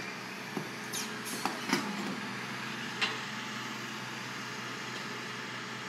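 Garbage truck running steadily with a low engine hum, with several sharp knocks and clanks in the first three seconds, the loudest about three seconds in.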